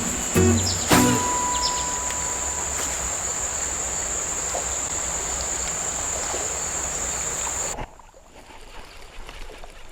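Background music ends about a second in, giving way to outdoor creek ambience: a steady high-pitched insect drone over an even hiss. Near the end the sound cuts suddenly to a much quieter hiss.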